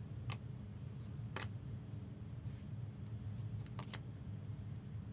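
Trading cards being handled: three or four short, sharp clicks of card stock, over a steady low hum.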